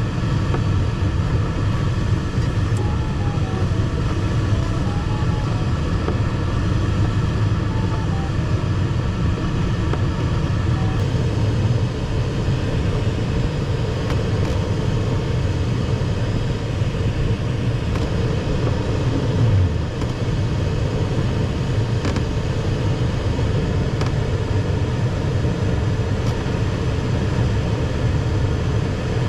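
Steady rushing and rumbling of airflow in the cockpit of an ASW 15 sailplane in flight, with no engine.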